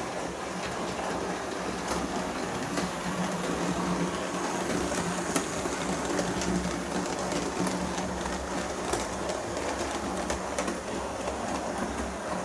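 Hornby model of the steam locomotive Tornado running on the layout, its built-in sound decoder playing steam-engine running sounds. Underneath are a steady mechanical hum and scattered clicks from the model on the track.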